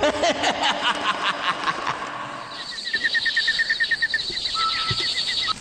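Cartoon sound effects: a rapid fluttering run of pulses that fades away over about two and a half seconds, then high chirping in a quick even series, about ten chirps a second, as evening scene ambience.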